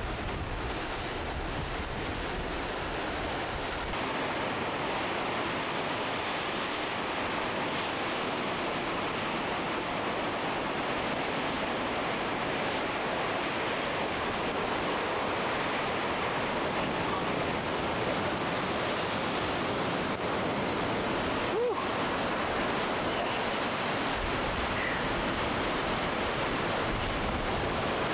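Steady rush of sea surf below the cliff, mixed with wind on the microphone. It is heavier and lower in the first few seconds, and a faint click comes about three quarters of the way through.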